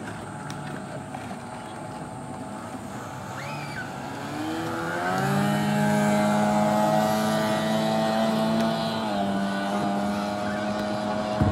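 Outboard motor of a small racing boat speeding past. Its engine note climbs and grows loud as it nears, holds steady, then drops a little in pitch as it goes by, about nine seconds in.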